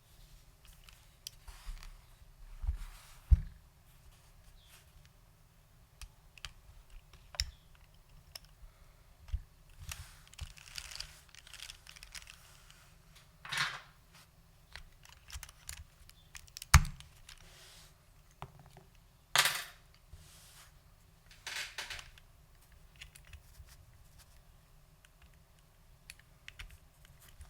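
Custom 60% keyboard with lubed SKCL Green Alps switches and doubleshot ABS keycaps being typed on, in irregular, fairly sparse keystrokes with a few louder clacks among them.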